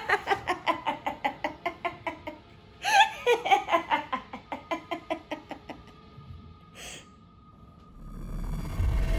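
A woman laughing maniacally: a rapid run of "ha-ha-ha" that fades, then breaks out again about three seconds in and dies away. A low rumble starts near the end.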